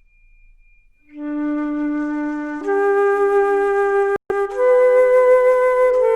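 Slow meditation music on a flute: long held notes begin about a second in and step upward twice. A faint high steady tone comes before the first note, and the sound cuts out for an instant a little past the middle.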